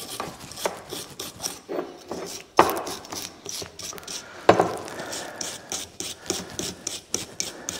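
Hand wire brush scrubbing a metal brake caliper bracket in rapid back-and-forth scraping strokes, cleaning old grease and dirt from where the parts sit. There are two louder knocks near the middle.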